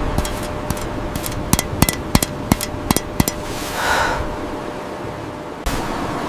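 An irregular run of about a dozen sharp knocks or cracks over two or three seconds, over a steady background hiss, followed by a brief whoosh.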